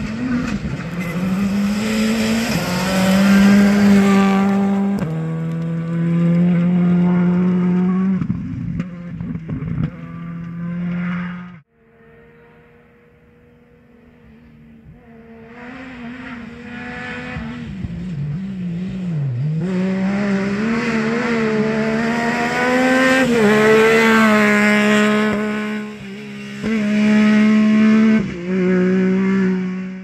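Rally car engines at racing speed on a dirt stage. First, one car is held at high revs with sharp gear changes, then cuts off suddenly. A second car comes up from a distance, getting louder as it revs up and shifts through the gears close by.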